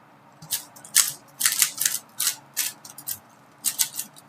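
3x3 Rubik's cube being turned quickly, its plastic layers clicking and clacking in an irregular run of turns that starts about half a second in.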